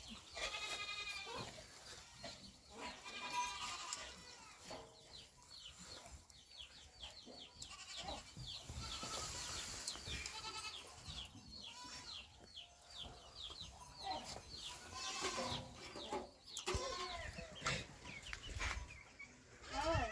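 A flock of sheep bleating, many short, wavering calls overlapping one another.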